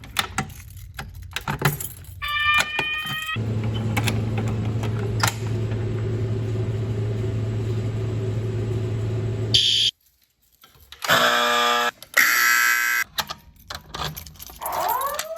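Fire alarm devices sounding. After some metallic clicks and a short pulsing tone, a steady buzzing alarm tone runs for about six seconds and cuts off suddenly. About a second later comes a louder, harsher alarm burst of about two seconds, and near the end there are rising tones.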